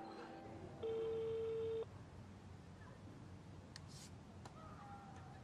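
Telephone ringback tone on an outgoing call: one steady beep lasting about a second, starting about a second in. It signals that the called phone is ringing and has not been answered.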